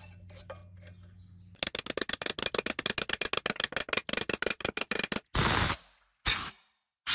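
Hand tools working on the CVT clutch shaft while new clutch bearings are fitted: a fast, even run of clicks or taps, about ten a second, after a faint hum. Near the end come two short bursts of hiss.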